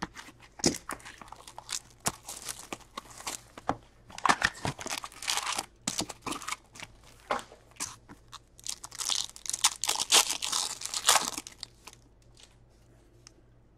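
Plastic shrink-wrap on an SPX hockey card box being slit with a box cutter and torn off, then the box opened and a card pack's wrapper ripped open: a long run of crinkling, crackling and tearing. It goes quiet about two seconds before the end.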